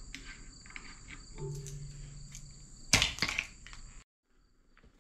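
Hand wrench working on the mounting bolt of an excavator boom work light: small metal clicks, then a burst of loud metal clanks about three seconds in, with insects buzzing steadily behind. The sound cuts off abruptly about a second later.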